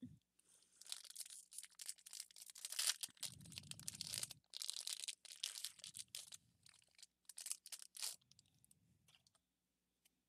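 Foil wrapper of a Pokémon TCG Vivid Voltage booster pack crinkling and tearing as it is opened, a run of rustles that stops about eight seconds in.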